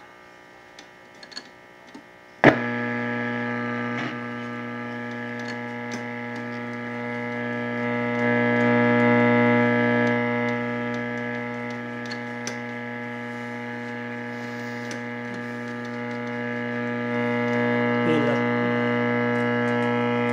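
Vintage Zenith AM/FM radio switched on with a sharp click about two and a half seconds in, then a steady mains hum from its speaker, several tones stacked together. The hum swells and fades in loudness as a knob is turned.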